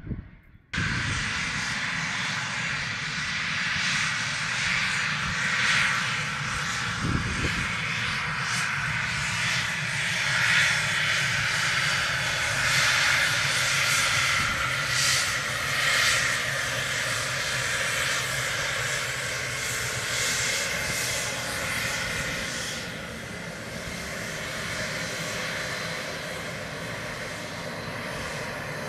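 Cessna Citation Bravo's twin Pratt & Whitney Canada PW530A turbofans running at taxi power: a steady jet whine and rush that cuts in abruptly just under a second in. It swells several times as the jet turns past close by and is a little quieter near the end.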